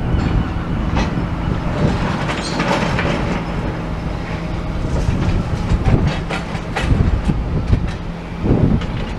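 Excavators working rubble: diesel engines running steadily under irregular clanks and crunches of broken concrete and scrap metal being sorted and moved.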